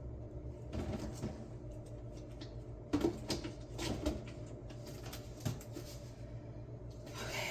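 Scattered light knocks and clicks of containers and fridge items being handled and set down, the clearest about three seconds in and again near five and a half seconds, over a steady low hum.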